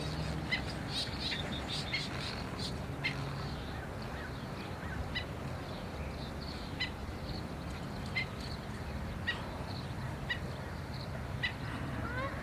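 Black-necked stilts calling: short, sharp yips repeated irregularly, about one or two a second, over a steady low background rumble. Near the end, lower rising calls join in.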